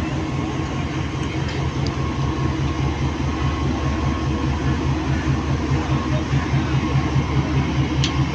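GEU-40 diesel-electric locomotive's engine running under power as it pulls the train out, throbbing in a fast, even beat of about five pulses a second that grows louder as the locomotive draws nearer. Two short, sharp clicks come near the end.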